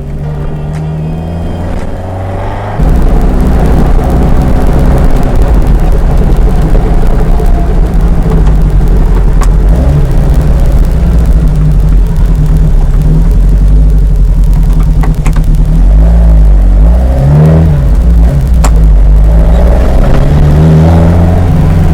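Ginetta sports car driving, its engine and road rumble loud and steady. The sound jumps louder about three seconds in, and the engine pitch dips and rises a few times later on.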